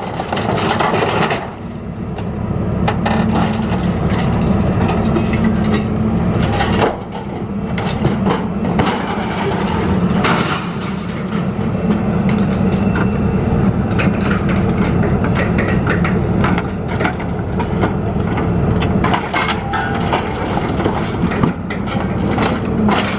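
A scrapyard material handler's hydraulic grapple crushes a wheeled scrap-metal chassis on a trailer: repeated cracking and crunching of bending metal over the machine's steady engine hum.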